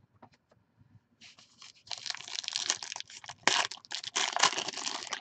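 Silver foil wrapper of a trading card pack being torn open and crinkled by hand. It starts about a second in and keeps crackling, with the loudest rips near the end.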